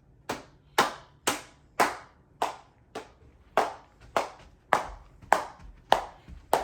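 Steady rhythmic hand claps, about two a second, each one short and sharp.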